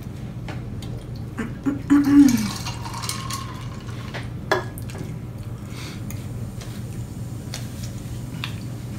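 Eating at a table: handling of burgers in crinkly paper wrappers and chewing, heard as scattered small clicks and knocks. About two seconds in there is a short falling vocal hum with rustling, and a sharp click comes at about four and a half seconds, over a steady low hum.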